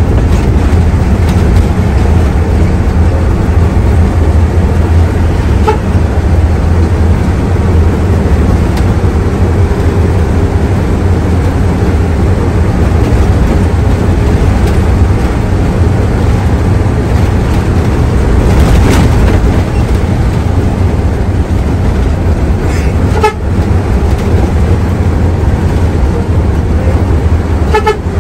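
Diesel engine of a Hino AK3HR Ranger medium bus running steadily with road and tyre noise, heard from inside the cabin: a heavy low drone.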